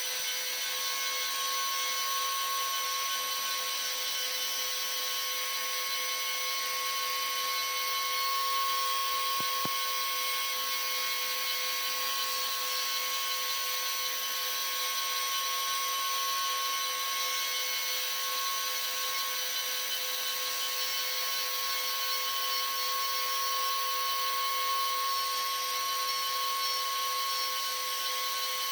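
Deckel G1L pantograph engraver's high-speed spindle running while it engraves a branding iron: a steady whine with a strong single tone, starting abruptly.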